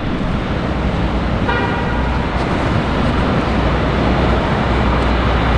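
A steady noisy rush that grows slightly louder, with one short car horn toot about a second and a half in.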